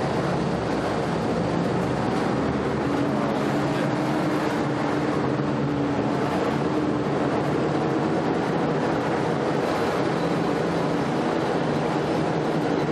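Army Duck (DUKW amphibious truck) engine running steadily as the vehicle drives, heard from inside it: an even drone with a steady hum.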